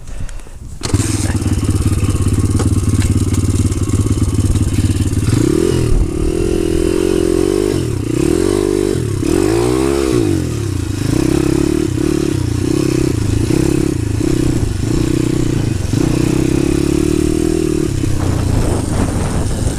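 DemonX Phatboi pit bike's single-cylinder four-stroke engine running under throttle, its revs climbing and falling several times, then pulsing in short on-off bursts before easing off near the end.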